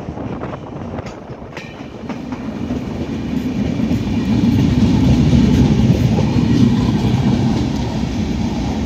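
Passenger train running on the rails, wheels clattering over the track. The rumble swells to its loudest about halfway through, as the coaches roll past close by, then eases a little.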